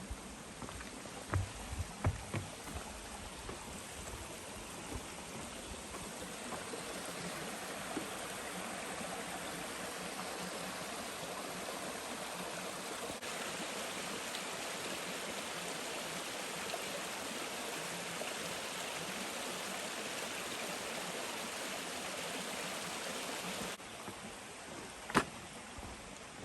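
A stream of running water rushing steadily, with a few soft knocks early on. It cuts off suddenly near the end, followed by a single sharp click.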